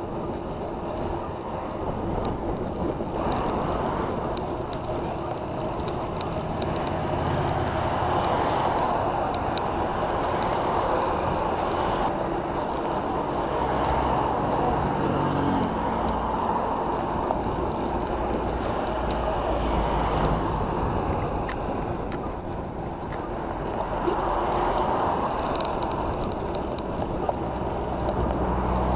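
Wind rushing over the microphone of a camera moving along a road, with road traffic going by.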